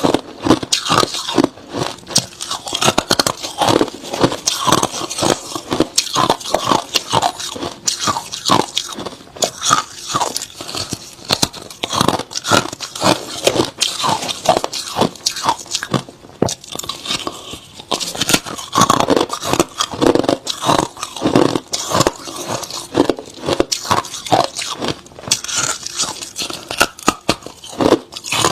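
Hard crushed ice being bitten and chewed, a fast run of loud, crisp crunches close to the microphone.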